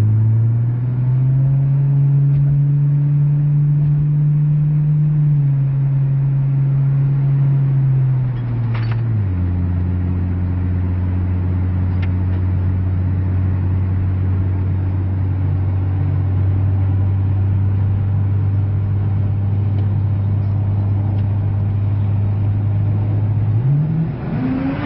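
Turbocharged 2JZ inline-six engine and exhaust of a MK4 Supra running at low, steady revs. The pitch drops a step about nine seconds in, holds steady, then climbs sharply near the end as the engine revs up.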